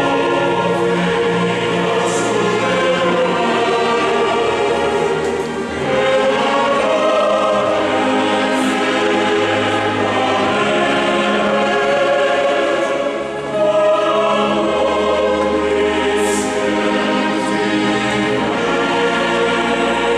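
Mixed choir singing held chords together with a string orchestra of violins, cellos and double bass, the harmony moving slowly from chord to chord, with a brief drop in loudness between phrases about two-thirds of the way through.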